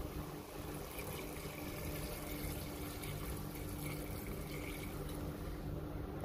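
Water poured steadily from a bottle into a cooking pot of chicken, adding the liquid for the tinola broth.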